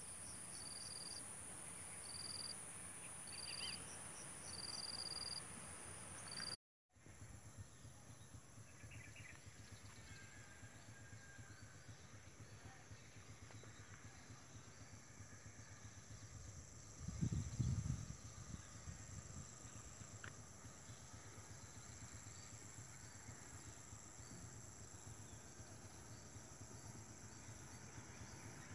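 Faint insect chorus: a steady high buzz with short chirps repeating about once a second, then after a brief dropout a steady high drone. A short low rumble sounds once, about seventeen seconds in.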